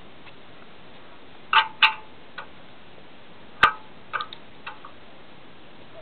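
A few sharp knocks and clicks from hard fittings being handled as the electrode cells are lowered into the tanks. Two loud knocks come close together about a second and a half in, the loudest comes at about three and a half seconds, and a few lighter clicks follow.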